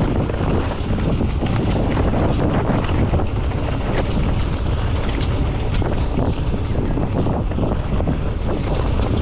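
Wind buffeting the microphone of a camera on a mountain bike riding down a rough trail, with a constant clatter of small knocks and rattles from the bike over the ground.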